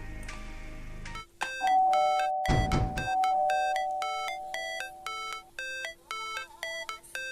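Background music: a piece with a deep bass drops away about a second in. A chiming melody of short ringing notes follows, with a long held tone and a falling sweep near the third second.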